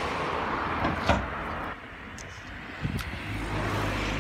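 Street traffic: a car going past, with a sharp knock about a second in, then a vehicle engine running low and steady from about three seconds in.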